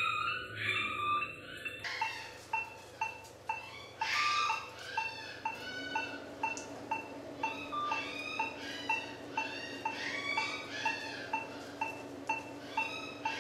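Background music: a light tune with a short, even beat about twice a second.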